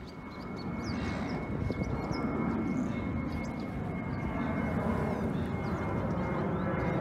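A steady engine rumble with a high, even whine, growing louder over the first second and then holding. Faint small-bird chirps sound above it.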